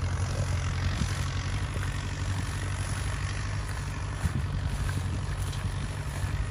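Turbocharged diesel engine of a 914 Turbo tractor running steadily under heavy load while pulling a subsoiler.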